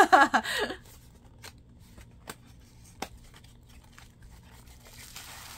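A woman laughs briefly, then a small kraft-cardboard box is opened by hand: a few light clicks and taps of the flaps, and a soft paper rustle near the end.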